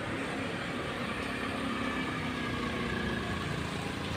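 A motorcycle's small engine running as it passes along the road, over steady traffic noise.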